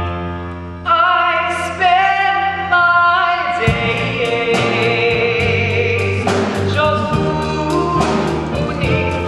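A male voice singing a musical-theatre song on long held notes, with live accompaniment. A fuller band with a steady drum beat joins about three and a half seconds in.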